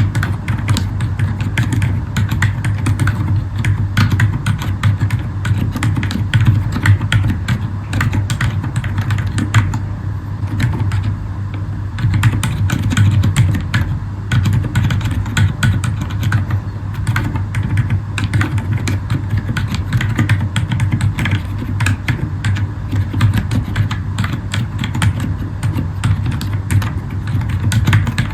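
Continuous typing on a Zifriend ZA63 mechanical keyboard with Akko Fairy silent switches: rapid, muffled keystroke clicks and thocks, thinning briefly about ten seconds in, over a steady low hum.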